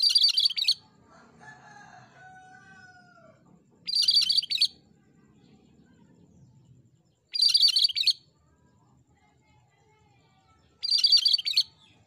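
Cucak Kerinci (Sumatran bulbul) calling: four short, loud, harsh bursts of song, each under a second long and about three and a half seconds apart. Faint, lower, falling whistles sound between the first two.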